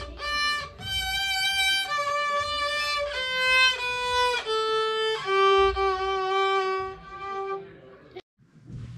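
A child playing a simple melody on a child-size violin, bowing one sustained note after another. The music stops abruptly about eight seconds in.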